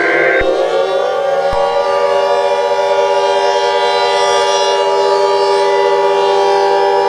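Civil defense warning siren with several tones that rise in pitch together over the first second and a half, then hold steady as a wailing chord. A short high electronic tone cuts off just after the start, and there is a click at about a second and a half.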